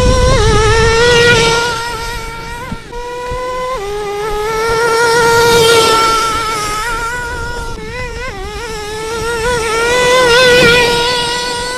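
Traxxas T-Maxx nitro RC monster truck's small glow-fuel engine buzzing at high revs, with a few small steps in pitch. It swells louder three times as the truck runs close past: about a second in, around six seconds, and near ten and a half seconds.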